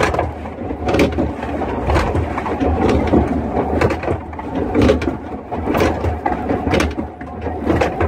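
Log flume lift hill running under a boat: a loud steady rumble with a sharp knock about once a second.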